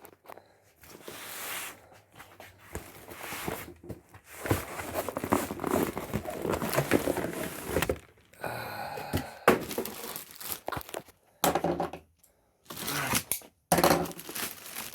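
Cardboard packaging being torn open by hand, with tearing and crinkling in several stretches broken by brief pauses.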